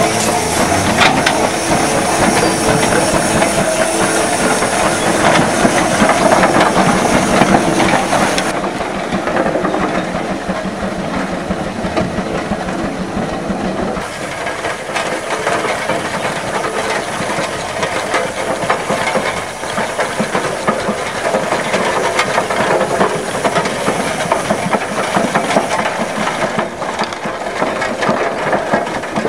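1909 Robert Bell steam traction engine running: a steady hiss of steam over a dense, rapid clatter from the working engine.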